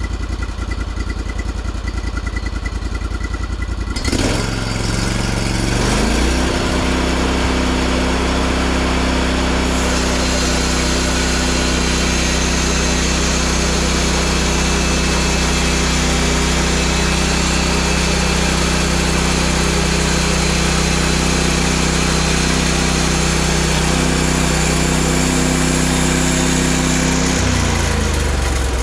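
Sawmill engine idling, then revving up about four seconds in and running steadily at high speed, then dropping back to idle near the end.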